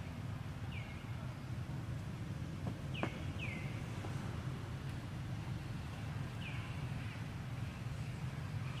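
Short high chirping calls, each sliding down in pitch then levelling off, about five of them spread irregularly, over a steady low background hum.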